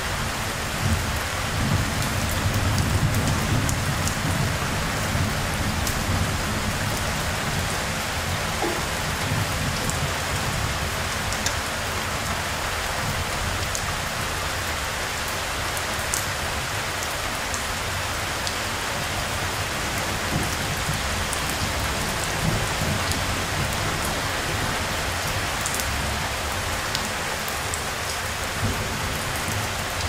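Steady rain pouring onto hard surfaces, a dense hiss with individual drops ticking through it. A low rumble swells in the first few seconds and then sinks back under the rain.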